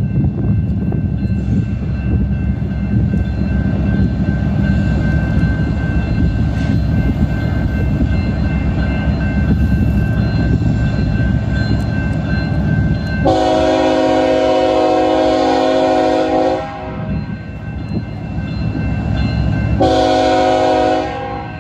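BNSF diesel freight locomotives rumbling steadily as they approach, then the lead unit's multi-note air horn sounds one long blast about 13 seconds in and a shorter one near the end: the horn warning for a grade crossing.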